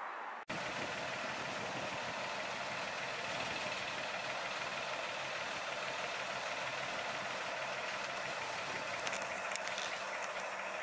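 Small diesel locomotive of a 15-inch-gauge miniature railway running steadily as it pulls a coach slowly round a curve. The sound breaks off briefly about half a second in, then the engine drone continues, with a few faint high clicks near the end.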